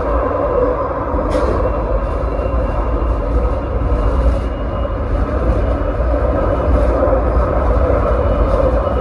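Tram running along its track, heard from inside its rear cab: a steady rumble with a faint click about a second and a half in.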